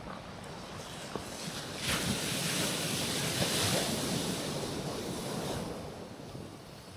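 Sea waves breaking on a rocky shoreline: one wave crashes about two seconds in, washes for a few seconds and fades away near the end.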